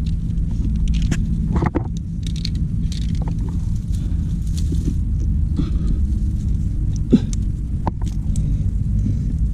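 A climber's movement while working up a narrow rock chimney: scattered scrapes, clicks and knocks of body and gear against rock, with one sharper knock about seven seconds in, over a steady low rumble.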